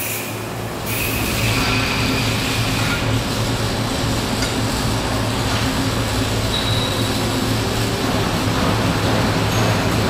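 Steady mechanical din of a metal fabrication shop floor where robotic aluminum and steel welding cells are running: a continuous rushing noise over a low hum, growing louder about a second in and then holding steady.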